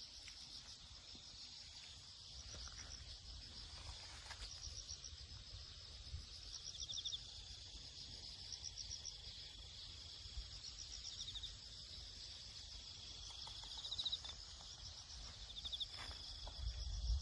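Insects chirring in a rural field: overlapping high, fast-pulsing trills that keep swelling and fading, over a low uneven rumble.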